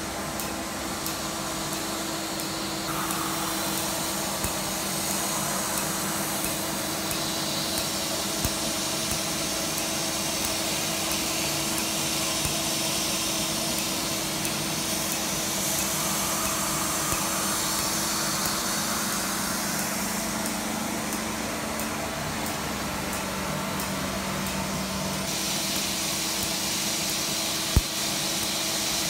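Steady rush of air with a machine hum underneath, from a cold-air skin chiller blowing through its hose nozzle and the tattoo-removal laser unit running. A few isolated sharp clicks, the loudest near the end.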